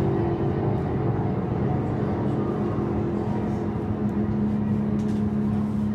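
Aircraft engines droning steadily in flight, a recorded sound effect played back through speakers. The pitch of the hum shifts slightly about three seconds in.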